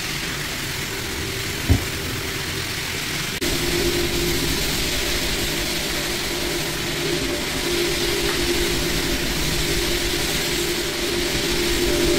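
Rotary floor buffer running steadily, its abrasive screen pad scrubbing built-up wax off a hardwood floor, with a steady hum. A single short thump comes about a second and a half in, and the sound steps up a little louder at about three and a half seconds.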